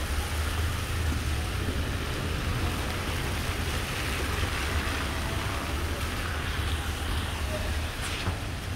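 Steady hiss of rain on a wet city street, with a constant low rumble of wind on the microphone.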